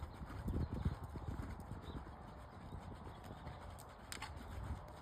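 Hoofbeats of a horse cantering on sand arena footing: dull, low thuds, loudest in the first second and softer after.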